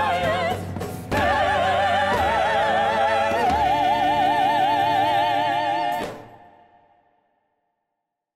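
Operatic singing over band accompaniment, building to one long held note with a wide vibrato that cuts off about six seconds in and fades away to silence.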